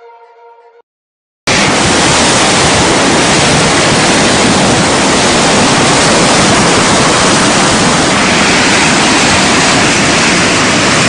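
Loud, steady roar of rushing floodwater, starting suddenly about a second and a half in after a short gap; the end of quiet electronic music is heard just before the gap.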